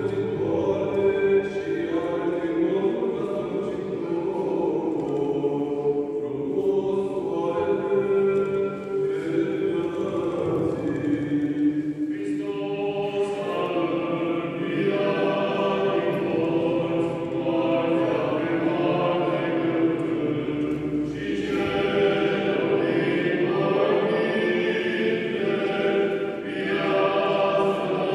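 Unaccompanied Orthodox liturgical chant sung by several voices as a choir, in long held phrases with brief breaks about 12 and 21 seconds in.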